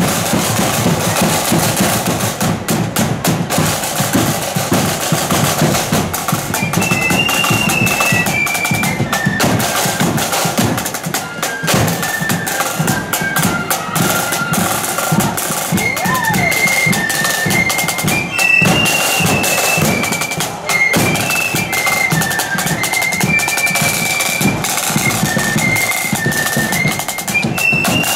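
Marching flute band playing on parade: snare drums and bass drum beat out a march, and a high flute melody joins about seven seconds in.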